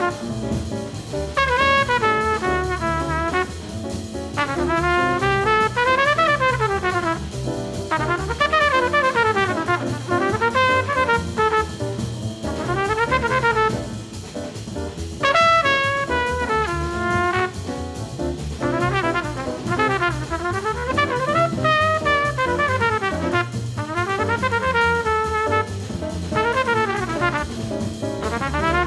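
Muted-free jazz trumpet playing quick bebop lines and held notes over walking upright bass and drums, in a small-group 1950s jazz recording.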